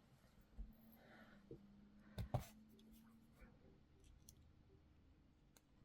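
Near silence with faint clicks and light taps of beads and small jewellery pieces being handled, two slightly louder clicks a little over two seconds in.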